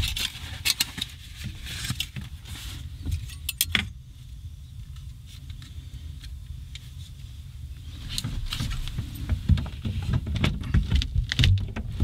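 Small metal clicks, clinks and rustles as parts of a Jetboil camp stove are handled and fitted together, over a steady low rumble. The clatter grows busier in the last few seconds.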